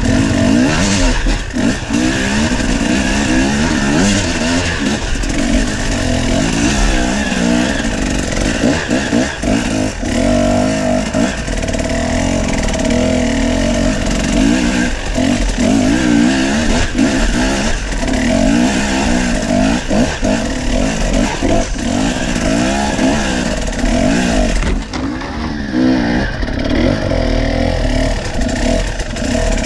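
Enduro dirt bike engine, heard close from the rider's seat, revving up and down continually as the bike climbs a rocky, muddy trail. Scattered knocks and clatter from the bike over stones mix with the engine.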